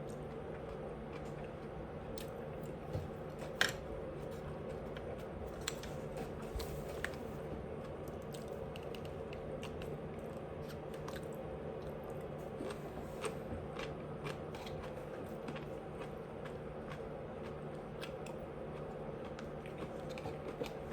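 A person chewing food close to the microphone, with scattered small clicks and smacks over a steady low hum; the sharpest click comes about three and a half seconds in.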